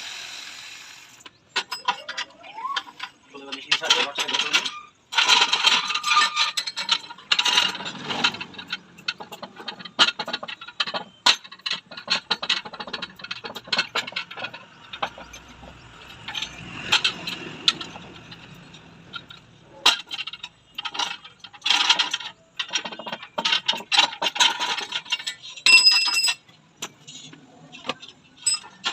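Metal tools clinking, tapping and scraping on a motorcycle rear shock absorber as it is taken apart to cut out its seal. The sounds are irregular clicks and knocks, with a ringing metallic strike near the end.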